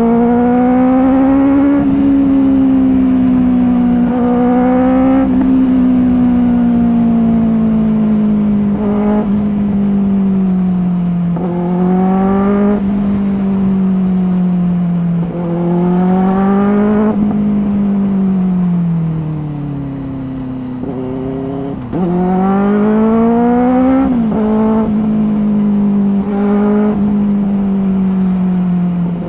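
Benelli 600i inline-four engine through dual SC Project slip-on exhausts, pulling hard through the gears: the note rises for a second or two and drops at each shift, several times over, with one longer easing off and a sharp pickup again about three-quarters of the way through. A steady rush of wind lies underneath.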